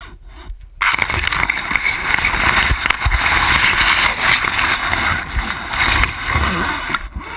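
Loud rustling hiss of a camera being handled and pushed through lakeside plants, with scattered low knocks; it starts about a second in and stops just before the end.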